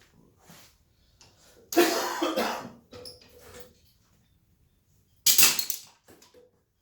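A man coughing twice, about two seconds in and again about five seconds in, with light knocks of wood clamps being handled in between.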